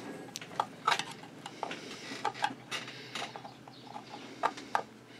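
Irregular small metallic clicks and ticks, about a dozen, as a long screwdriver works against a stuck screw on the feed dog lifter shaft of a Singer 66 sewing machine.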